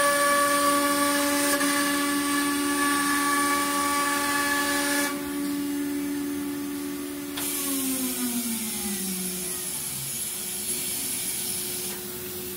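CNC router spindle running with a steady high whine over a hiss, then, about seven and a half seconds in, the whine falls steadily in pitch as the spindle spins down. A second, lower steady hum from the machine keeps running throughout.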